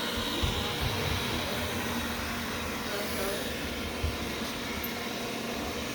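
Wyze robot vacuum running with a steady whir, with a few short low thumps.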